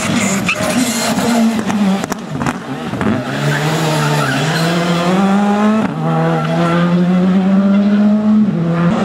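Rally car engine under hard acceleration. It is choppy at first, with a few sharp cracks, then the revs climb, drop abruptly at an upshift about six seconds in, and climb again to another upshift near the end.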